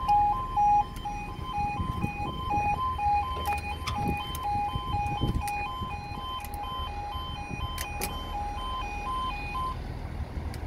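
UK level crossing audible warning alarm: an electronic two-tone warble switching rapidly back and forth between two notes. It cuts off suddenly near the end, once the barriers are down, over a low rumble.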